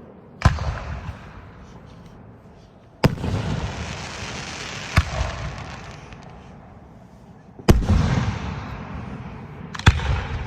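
Aerial firework shells bursting: five loud bangs a second or two apart, each followed by a drawn-out rumble that fades away.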